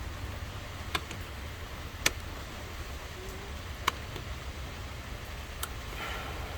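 Four sharp clicks spread out over several seconds, with some rustling near the end, as fingers try to pry out plastic push-pin fasteners on a motorcycle's rear cover. A steady low hum lies underneath.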